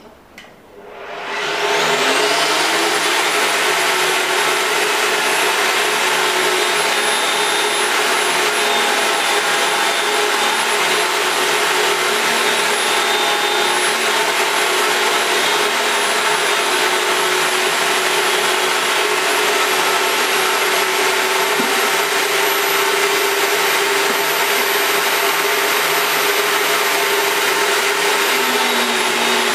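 Rothenberger Supertronic electric pipe-threading machine switched on about a second in, its motor whining up to speed and then running steadily.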